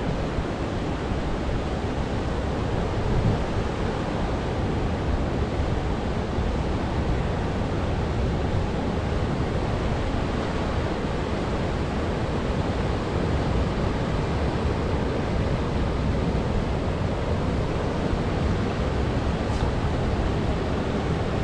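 Steady rush of river water tumbling through rocky rapids below a dam's spillway, with wind rumbling on the microphone.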